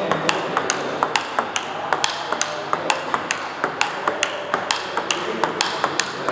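Table tennis rally: the celluloid ball clicking sharply off rubber paddles and the table top, about three clicks a second and evenly paced, with fainter clicks from rallies on neighbouring tables in the hall.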